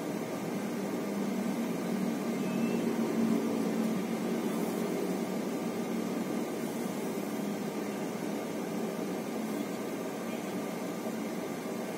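Steady noise inside an Airbus A321neo airliner on descent: a constant rush of air over a low engine hum, swelling slightly a few seconds in.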